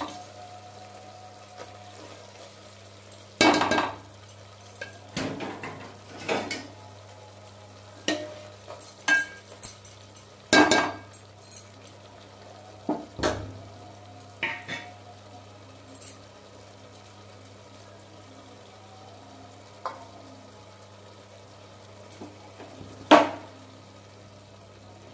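Perforated steel ladle stirring thick chicken curry in an aluminium pot, with irregular clinks and scrapes of metal against the pot, busiest in the first half, and one sharp clank near the end. Underneath, a faint steady sizzle of the curry cooking.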